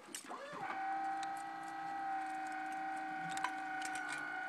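Steady motor whine from the bale wagon's lifting mechanism, rising in pitch as it starts about half a second in and then running evenly. There is one sharp click near the middle.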